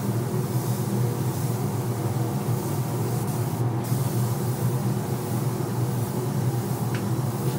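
Hiss of a compressed-air spray gun over a steady low machine hum. The hiss breaks off briefly a little past halfway.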